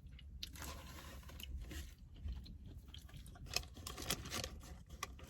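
Close-up chewing and crunching of food, with a run of short wet mouth clicks and crackles.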